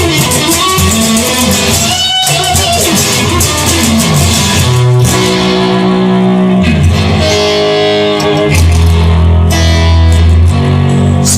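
Instrumental rock music: electric guitar over bass, with notes held for a second or more in the second half.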